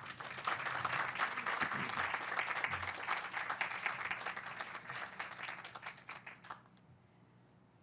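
Audience applauding, a crowd of many hands clapping that dies away about six and a half seconds in.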